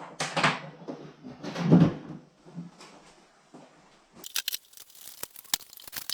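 Rummaging through tools and equipment: a couple of scraping, shuffling handling noises, then from about four seconds in a quick run of sharp clicks and rattles of small hard objects being moved about.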